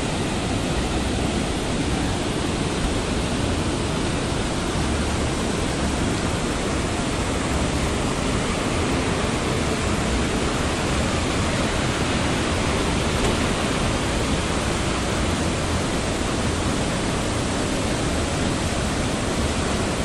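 Waterfall cascades rushing over boulders: a loud, steady, unbroken wash of white water.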